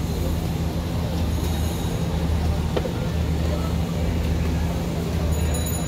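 Steady low rumble of street traffic, with one short click a little before the middle.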